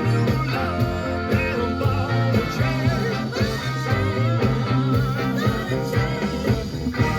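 Blues-rock music with electric guitar and a steady drum beat playing on a car stereo.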